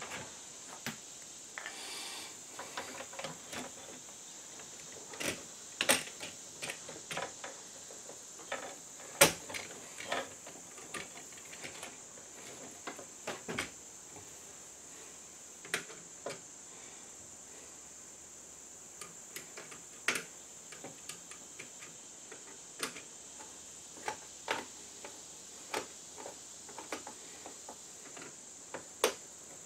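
Scattered, irregular clicks and taps of pliers and stiff copper wire against a metal breaker panel, as ground and neutral wires are worked into its bus bar.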